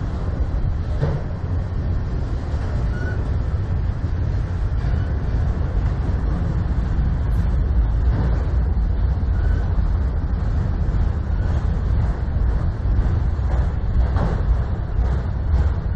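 Freight train of autorack cars rolling past close by: a steady low rumble of steel wheels on rail, with a few faint, short squeals.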